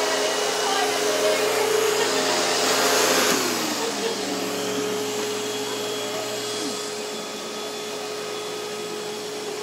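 Vacuum cleaner running steadily, a motor whine over a rushing hiss; about three seconds in it gets a little quieter and its lower hum briefly dips in pitch.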